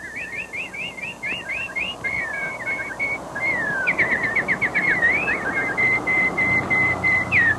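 A rapid string of high whistled chirps, several a second, sliding up and down, with a run of short even notes near the end, over a steady hiss.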